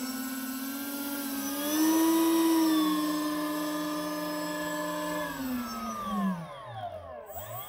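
Electric ducted fans of a quad 50 mm EDF RC Airbus A380 model whining at taxi power. The pitch rises about two seconds in, holds steady, then the fans spool down with the whine sliding lower near the end.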